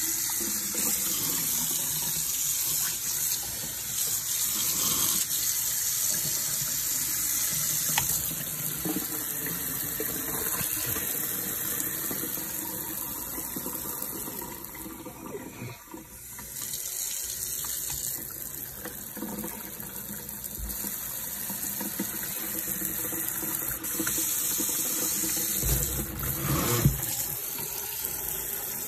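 Water from a single-lever pull-down kitchen faucet running into a sink, changing from a solid stream to a spray partway through, with the spray head pulled out on its hose near the end. A few knocks near the end as the hose is handled.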